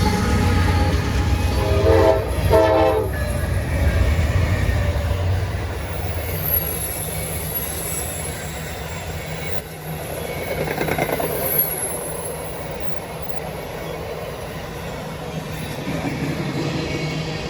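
Locomotive horn: a held chord ending just after the start, then two short blasts about two seconds in. A train then rolls past with wheel clatter, and high-pitched wheel squeal comes twice.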